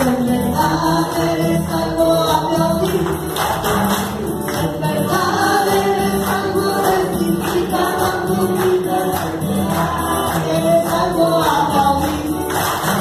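Live Catholic praise song played through a PA: a woman sings into a microphone over music while a group claps along to the beat.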